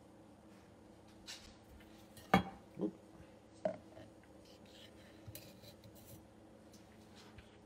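Light handling clicks and taps as a pocket probe thermometer is switched on and its metal probe is pushed through the plastic lid of a stainless steel YETI Rambler tumbler: one sharp tick a little over two seconds in, then two softer ones within the next second and a half.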